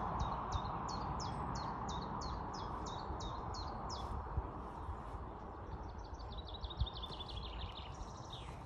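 A songbird singing a run of short, high, down-slurred notes, about three a second. A faster series of notes that step down in pitch follows in the second half. Under it is steady background hiss, with a faint thud about seven seconds in.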